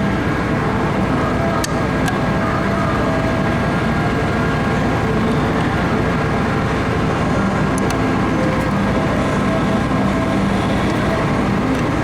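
Steady mechanical hum of workshop background noise, with a couple of faint clicks as a small bolt and pointer are handled.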